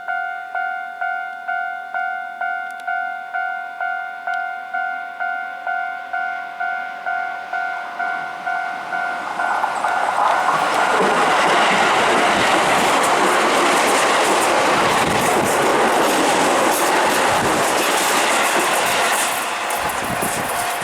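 Japanese level-crossing warning bell ringing in steady electronic pulses, about one and a half a second. About ten seconds in, a Keihan electric train runs through the crossing, and its wheel and running noise drowns out the bell for about ten seconds. The bell is heard again near the end.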